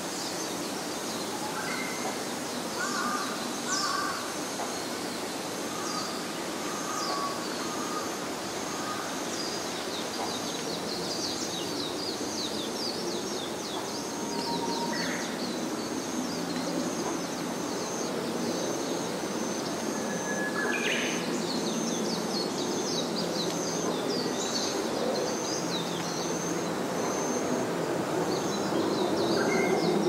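Outdoor ambience beside a forest pond: a steady high-pitched chorus of calls carries through, with scattered lower bird calls and a constant background rush beneath.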